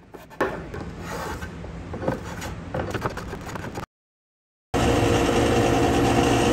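A scrub plane taking several shaving strokes across a board to rough out its twist. After a brief cut to silence, a thickness planer runs steadily, louder than the planing, with a few held tones in its sound.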